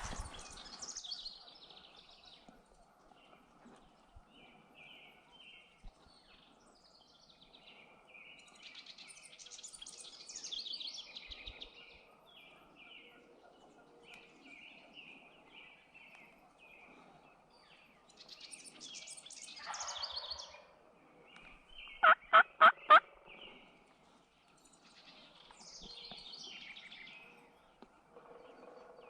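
Wild turkey gobbler gobbling again and again at a distance, with small birds chirping in between. About two-thirds of the way in comes a much louder, close run of five quick sharp notes.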